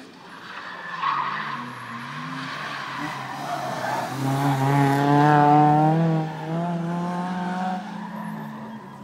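Rally car engine accelerating hard through the gears, its pitch climbing and then dropping at each gear change. It is loudest about five seconds in, then fades away.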